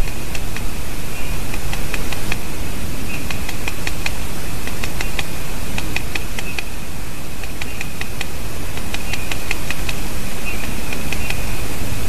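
Great spotted woodpecker tapping and pecking at wood: irregular bouts of short sharp taps, a few to many in quick succession, over a steady hiss.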